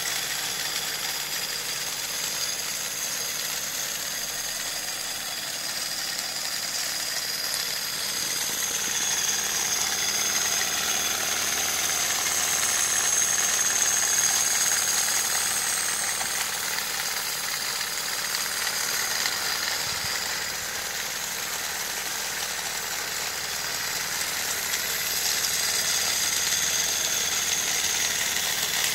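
Handmade wooden-stick model engine mechanism running on electric and magnetic drive: a continuous rattling clatter of wooden linkages and parts, with a steady high whine on top. The whine and rattle grow louder about a third of the way in and again near the end.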